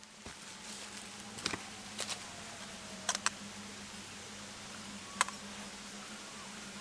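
Rolleiflex twin-lens reflex camera being handled on its tripod, giving a series of short, sharp mechanical clicks as its parts are worked: a few single clicks, a close pair about three seconds in, and the loudest about five seconds in.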